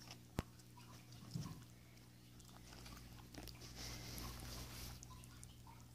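Pet rabbit biting and chewing a cherry, faint small chewing sounds. A single sharp click comes about half a second in and a low thump about a second and a half in, over a steady low hum.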